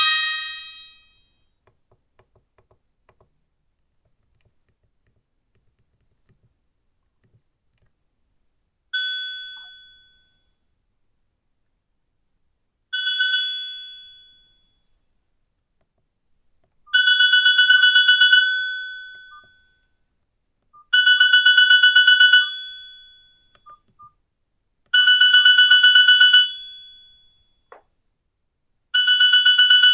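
Nokia 5310 feature phone playing a built-in ringtone: a rapidly trilled, bell-like telephone ring repeated every four seconds, the first two rings short and quieter, the later ones longer and louder. The tail of a previous melodic ringtone fades out at the start, followed by several seconds of quiet before the rings begin.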